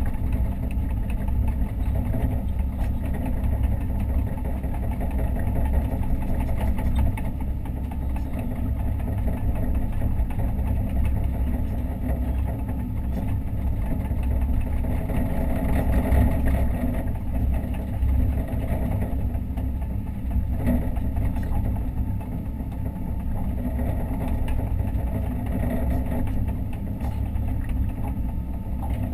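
Hitachi Zaxis 130 excavator's diesel engine running steadily, heard from inside the operator's cab, with small swells in level.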